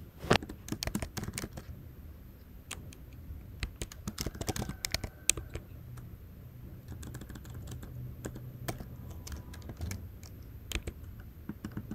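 Typing on a computer keyboard: irregular quick runs of keystroke clicks with short pauses between them.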